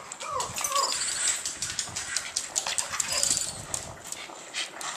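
Small dog whining in the first second, then clicking and scuffling as she moves over the floor. High chirps of recorded thirteen-lined ground squirrel calls sound through it.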